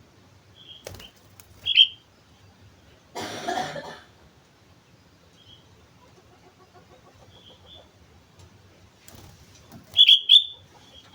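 Sooty-headed bulbul (kutilang) giving short, sharp chirping calls, spaced out with long gaps, loudest as a quick pair near the end. There is a brief noisy burst about three seconds in.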